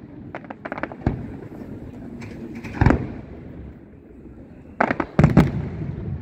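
Aerial fireworks shells bursting: an irregular series of sharp bangs, with a quick run of lighter pops in the first second, a loud bang about three seconds in, and a cluster of the loudest bangs near the end.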